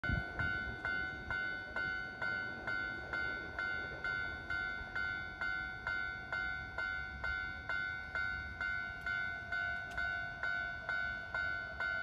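Japanese railway level-crossing warning bell ringing steadily, a little over two strokes a second, each stroke a bright ringing tone. It is warning that a train is approaching and the barrier is down.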